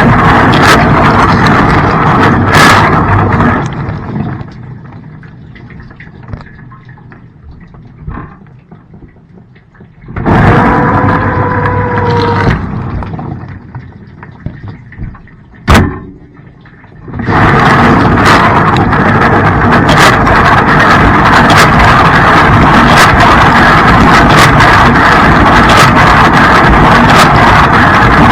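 Blanco dishwasher running its wash cycle: water spraying loudly at first, then quieter with light clicks, a second spell of spraying with a steady pump-motor whine, a sharp click, and from about two-thirds of the way in continuous loud spraying as the top spray arm comes on.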